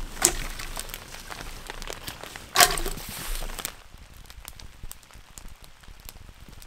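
Small wood campfire crackling with scattered pops and ticks, with a sharp crack about two and a half seconds in as fresh sticks settle into it.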